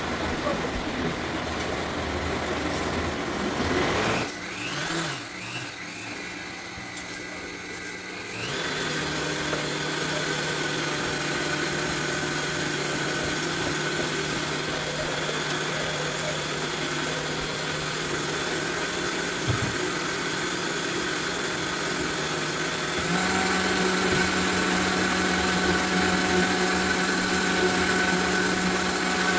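Countertop blender motor running under the load of a thick raw-potato batter. Its speed shifts and dips over the first several seconds, then it runs with a steady hum. About 23 seconds in it steps up to a higher, louder speed.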